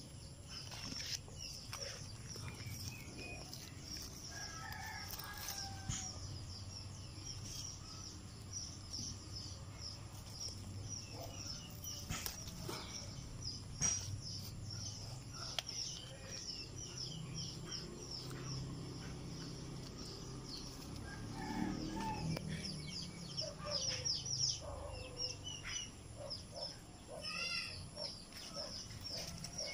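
Backyard poultry: chickens clucking and a rooster crowing about two-thirds of the way through, with small birds chirping throughout.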